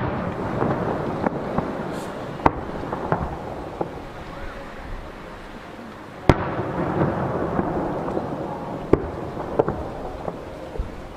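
Aerial fireworks shells bursting: two loud booms about six seconds apart, each followed by a few seconds of rumbling echo, with scattered smaller pops between.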